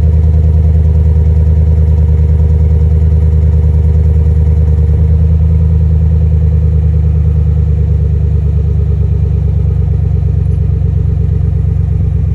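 Chevrolet Silverado 5.3-litre V8 idling through a Flowmaster muffler and turned-down tailpipe on its first start of the day: a low, steady exhaust note, easing slightly in level about halfway through.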